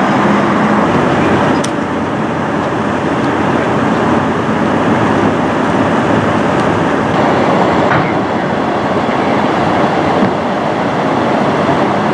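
Steady street traffic noise.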